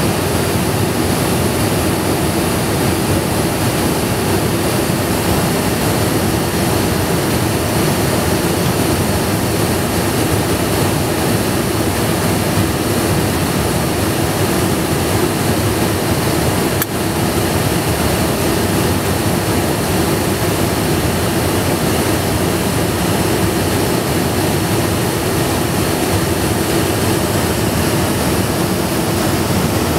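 Steady cabin noise inside a Dassault Falcon 50 business jet in flight: a constant rush of airflow and the drone of its three rear-mounted turbofan engines, with a steady hum underneath.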